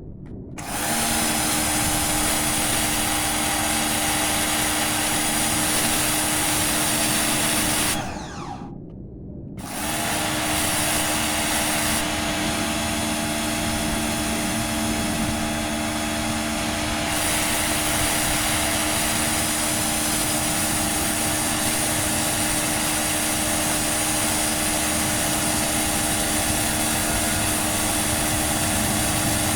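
Pro Clean PKPW01 electric pressure washer motor and pump running steadily. It cuts out about eight seconds in, winding down, and starts again a second and a half later. It runs normally, so the unit works.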